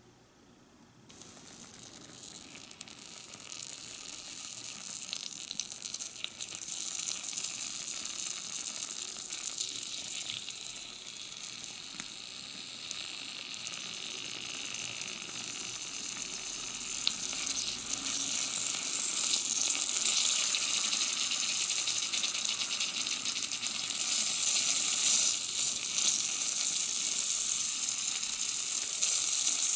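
Beef sizzling in a miniature cast-iron sukiyaki pot, a crackling hiss that starts about a second in and grows steadily louder as more slices go in.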